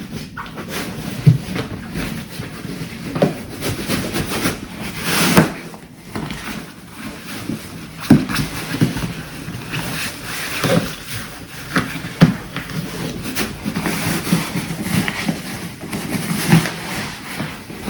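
Fabric rustling and scraping, with irregular bumps and knocks, as a rolled-up self-inflating sleeping pad is handled and packed into its carrying bag.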